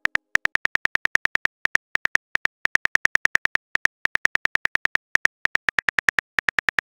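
Phone keyboard click sound effect as a text message is typed: a quick, uneven run of identical short high ticks, about six a second.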